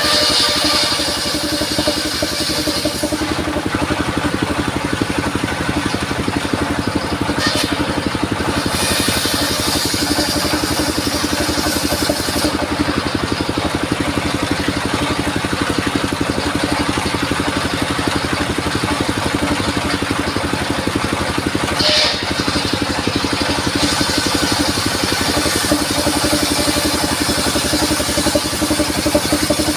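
Engine-driven circular sawmill running steadily, with a constant engine drone under a higher hiss that fades and returns a few times.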